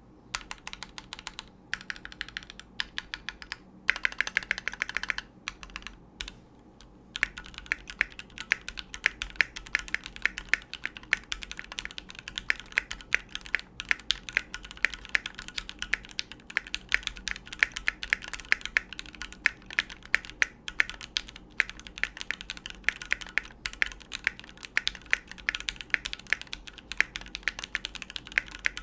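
Typing on a Keychron Q3 mechanical keyboard with stock Gateron Pro Red linear switches. The clacks come in short, broken runs for the first several seconds, then turn into steady, fast typing.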